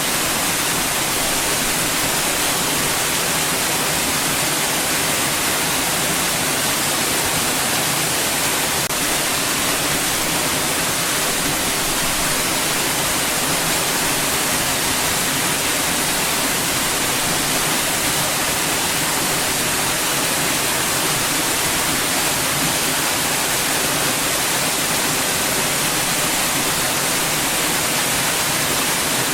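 Steady white noise, an even hiss without any change, strongest in the upper range.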